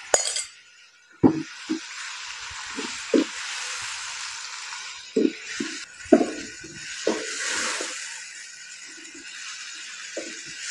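Marinated chicken pieces sizzling in hot oil with browned garlic in a nonstick wok, stirred with a wooden spatula that knocks against the pan now and then. The sizzling starts about a second in.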